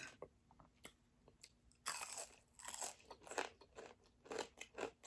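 Close-up crunchy chewing: a person biting and chewing crisp fried food, with a run of irregular crunches starting about two seconds in.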